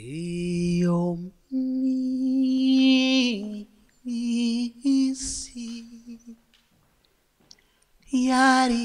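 A man singing without accompaniment into a microphone. He holds long notes with short pauses between them: he slides up into the first note, puts vibrato on the second, and after a quiet stretch sings one more loud note near the end.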